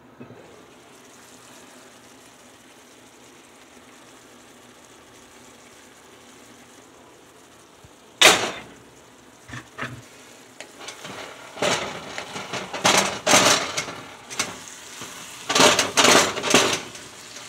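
Ground beef and asparagus simmering in a cast-iron skillet with a faint steady sizzle. About eight seconds in comes one sharp clank; from about eleven seconds a wooden spatula scrapes and stirs through the food against the pan in quick, repeated strokes.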